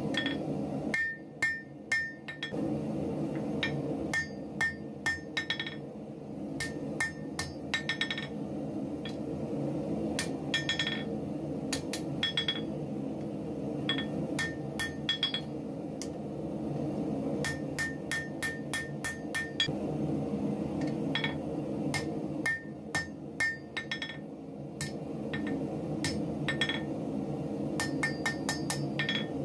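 Hand hammer striking red-hot file steel on an anvil, partly over the horn, to draw out and radius the bar. It comes in runs of quick blows with short pauses, each blow ringing.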